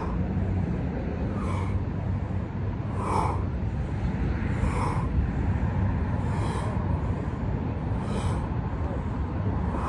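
A person breathing hard during exercise, with a sharp exhale about every second and a half, over a steady low rumble.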